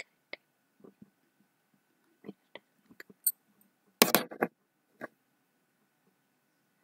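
Near silence broken by scattered faint clicks and one louder, short sharp noise about four seconds in.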